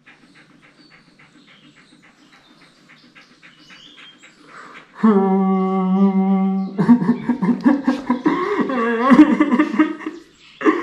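Faint rapid ticking, about four a second, then a man crying loudly from about five seconds in. It starts as one long, low, steady wail, then turns into wavering, sobbing wails that break off shortly before the end.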